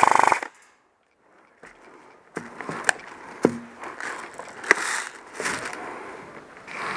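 Scattered sharp knocks and clicks over low rustling, irregular and close to the microphone, starting after a brief loud burst and a second of near silence.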